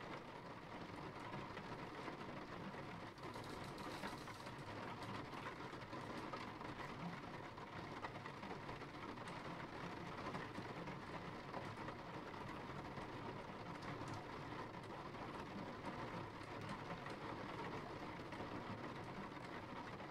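Steady rain falling: a soft, even hiss with faint scattered drop ticks.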